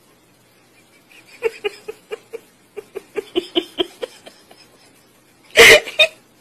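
A Pomeranian gives a quick run of short yaps, about five a second. About 5.5 seconds in comes one loud, sharp bark, with a smaller one straight after.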